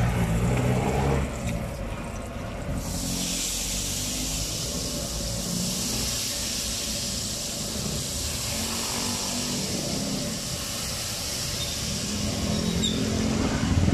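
Hot oil sizzling steadily in a large street-stall wok where calamares are deep-frying. The sizzle sets in sharply about three seconds in, over a low engine rumble.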